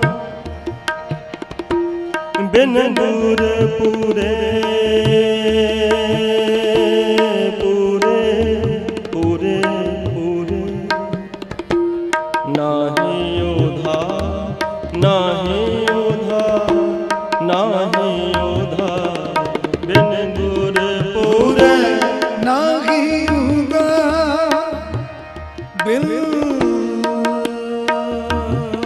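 Kirtan music: harmoniums sustaining a melody over a steady tabla rhythm, with a voice singing wavering, ornamented lines over them.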